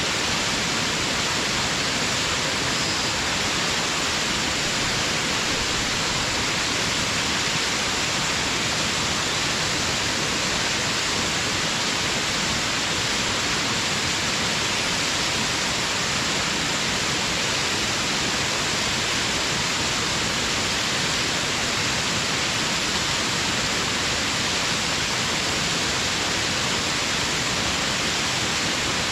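Waterfall spilling over a dam: a steady, even rush of falling water, strongest in the upper hiss, with no breaks or changes.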